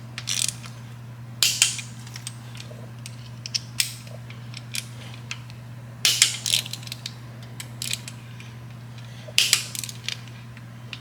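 Ratchet torque wrench tightening quarter-20 cam cover bolts to 120 inch-pounds: about four short bursts of rapid ratchet clicks with single ticks between them, over a steady low hum.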